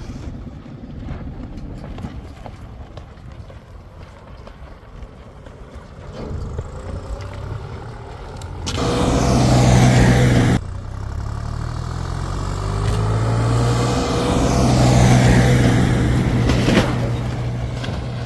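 Tractor engine running and revving up twice: a loud surge from about nine seconds in that cuts off abruptly, then a second, longer rise a few seconds later.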